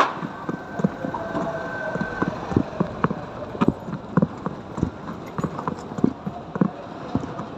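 Hard steps knocking on pavement, roughly two a second and unevenly spaced, over street noise. A steady high tone sounds for the first two seconds or so.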